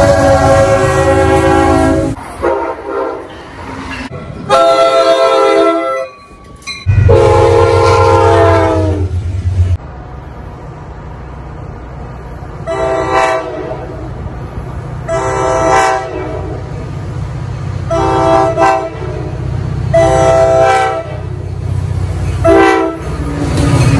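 Diesel locomotive air horns sounding a series of chorded blasts. First a CSX freight locomotive passing close gives three long blasts over a heavy engine rumble. Then an NJ Transit commuter train's locomotive, approaching, sounds five shorter blasts over a steady rumble.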